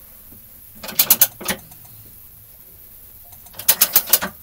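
A small vise being cranked tighter on a 3D-printed Armadillo-filament part, giving two quick runs of sharp ratcheting clicks, about a second in and again near the end.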